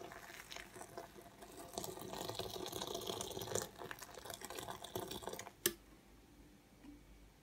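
Water running unevenly into a glass measuring jug packed with water-soluble packing peanuts, stopping about five and a half seconds in with a single sharp click.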